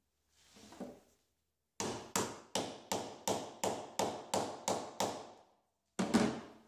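A hammer striking the handle of a ratchet fitted with a Torx socket: about ten sharp metal strikes at roughly three a second, then two more near the end. The hammering is shock-loosening a stuck Torx bolt on the windshield hinge.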